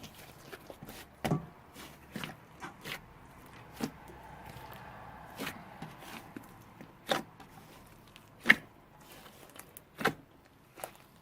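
Slime being mixed by hand: scattered sticky pops and clicks at irregular intervals, a few of them sharper and louder.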